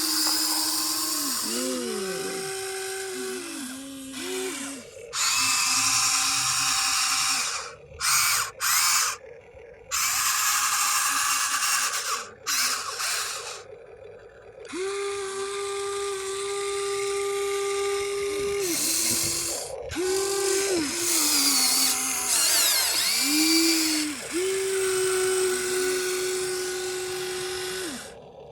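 Electric motors and gears of a radio-controlled excavator whining in repeated bursts, the pitch rising as each movement starts and falling as it stops, with a rasping, grinding noise over them that cuts in and out.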